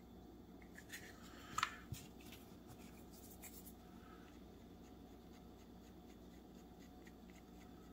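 Light clicks and a sharp tap about one and a half seconds in as small tools are handled, then faint scratching and ticking as a wooden craft stick presses a glued sandpaper strip onto a nylon clamp pin.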